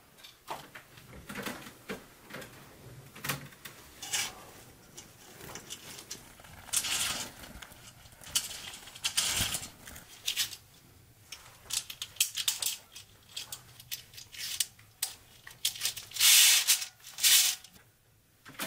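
Curtain fabric rustling and swishing while fittings click and scrape along a metal curtain rod as curtains are hung, with two louder swishes near the end.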